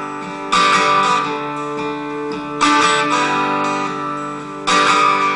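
Acoustic guitar strumming chords: three full strums about two seconds apart, each left to ring out.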